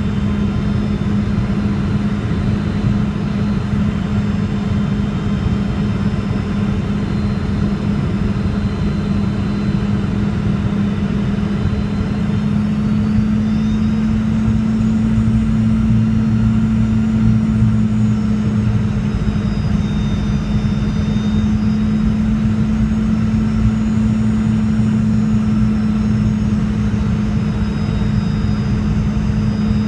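Boeing 717's rear-mounted Rolls-Royce BR715 turbofans heard from inside the cabin: a steady drone with a strong hum and a faint high whine. Partway through, the hum and the whine shift slightly in pitch and the engines get a little louder.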